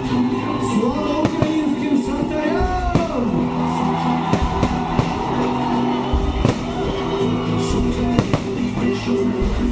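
Loud pop music with singing, with fireworks banging and crackling many times throughout.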